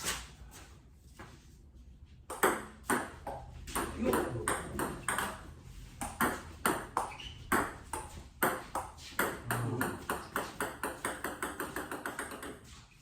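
Celluloid-type table tennis ball clicking off paddles and the table in a rally, a sharp tick every third of a second or so. The ticks come faster and closer together toward the end.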